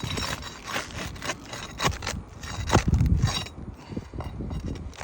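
Scraping and rubbing of asphalt roof shingles being lifted and worked loose, with scattered clicks and a louder low rumble about three seconds in.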